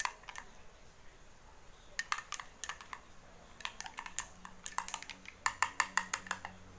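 Teaspoon stirring in a drinking glass, clinking against the glass: scattered light clinks, then a quick run of clinks about five and a half seconds in, while anise seeds, boiled water and honey are mixed.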